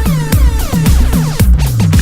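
Electronic dance music with a heavy four-on-the-floor kick drum, pulsing bass notes and falling synth sweeps.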